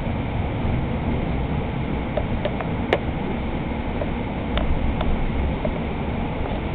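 Hudson-Bergen Light Rail car heard from inside while running along the track: a steady low rumble with a few sharp clicks, the loudest about three seconds in.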